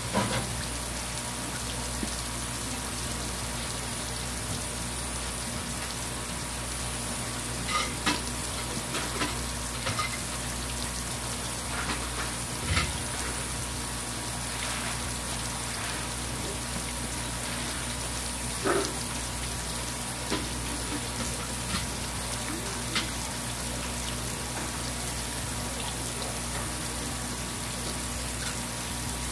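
Steady hiss of running water over a low, even hum, broken by scattered sharp clicks and knocks.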